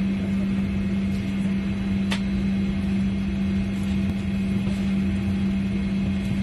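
Steady hum of a parked airliner heard inside the cabin, ventilation and onboard systems running, with one strong steady low tone over a rumbling background. A single faint click about two seconds in.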